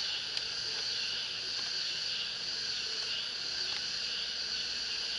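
Steady high-pitched chorus of chirring insects, unbroken throughout.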